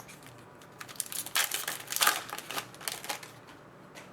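Crinkling and rustling of hockey trading cards and their pack wrappers being handled: a dense run of short crackles from about a second in until just past three seconds.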